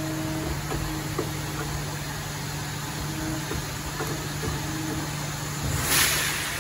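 Automatic tool changer of a Norte Verticent VS2 vertical machining centre cycling ISO 50 tool holders from its 40-position chain magazine: a steady machine hum with a whine that comes and goes, a few light clicks and clunks, and a short hiss about six seconds in.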